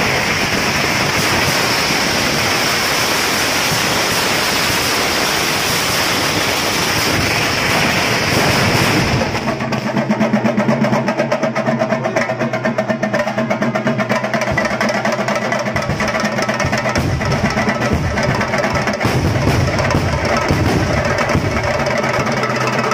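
Temple festival drumming: drums beat a fast, dense roll. About nine seconds in, it turns into sharper, quick-fire beats with a high held tone running over them.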